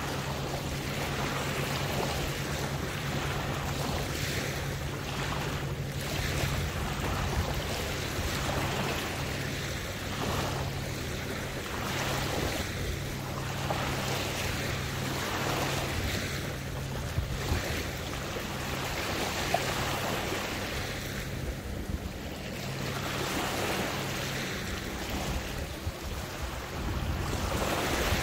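Water lapping and sloshing in uneven surges that swell and ebb every second or two, over a steady low hum.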